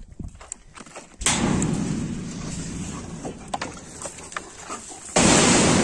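A few small clicks as the cap of a large plastic water bottle is unscrewed, then from about a second in water pouring and splashing steadily into a steel dog bowl, slowly easing off. Near the end a sudden, louder rushing noise cuts in.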